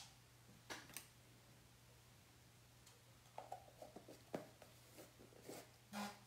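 Near silence with faint scattered clicks and light taps of small plastic chalk paste jars being closed and handled, over a low steady hum. A brief muffled low sound comes near the end.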